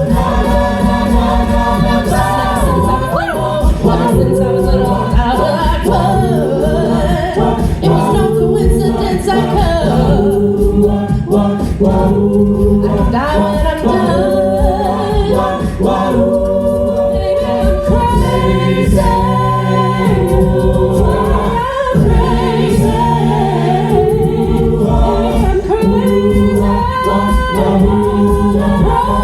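A choir singing in harmony, many voices holding and moving between chords without a break.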